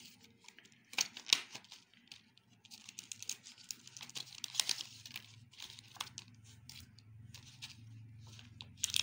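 Clear plastic blister packaging being pried open and handled, crinkling and crackling with a few sharp snaps about a second in. A faint low hum sets in about halfway through.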